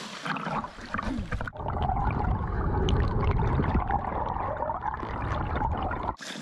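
Water heard from underwater as a German Shepherd paddles in a pool: a dense, muffled churning, mostly low in pitch. About a second and a half in, the splashing at the surface gives way to this muffled sound, and near the end the sound turns clear again.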